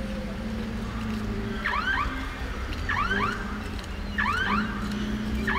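Car alarm going off: a repeating chirp of curved pitch sweeps that comes back a little more often than once every second and a half, starting a couple of seconds in, over a low steady hum.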